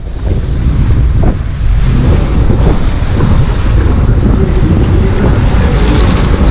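Water rushing and splashing around the nose of a log flume boat as it moves along the water channel, with wind buffeting the microphone. The sound is steady and loud, with a brief lull at the start and more hiss toward the end.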